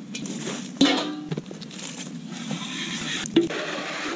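A stainless steel bowl clanks with a short ringing note, then water runs from a garden hose into a plastic chicken waterer with a steady hiss. Another sharp clank comes near the end.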